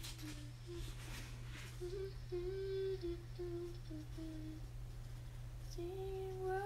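A female voice humming a slow, lullaby-like melody in long held notes, over a steady low hum.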